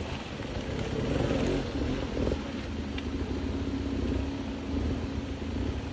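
Enduro dirt bike engine revving as it climbs a steep, rooty slope: the revs rise and fall, then hold fairly steady for a couple of seconds.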